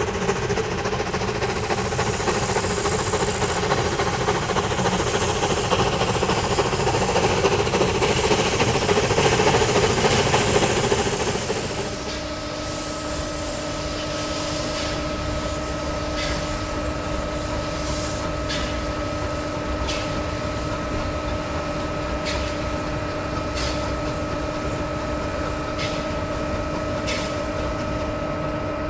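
Metre-gauge steam locomotive running on the rack line, its working noise growing louder as it approaches, with a brief hiss of steam near the start. After a sudden change about twelve seconds in, a steam locomotive pulls a train away from a station: sharp exhaust beats one to two seconds apart over a steady hum.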